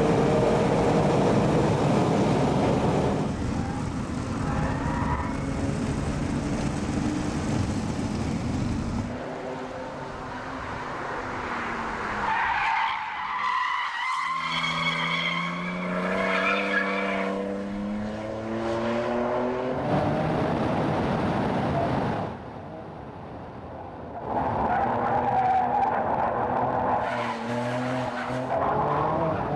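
RUF CTR Yellow Bird's twin-turbocharged flat-six under hard acceleration on track, its note climbing repeatedly through the revs and breaking off at the shifts.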